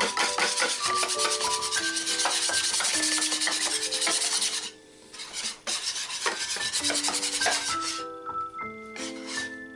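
Wire whisk beating batter in a metal baking tray: fast, rapid scraping strokes, a short pause about halfway, then slower, sparser strokes. Background music with a melody of held notes plays throughout.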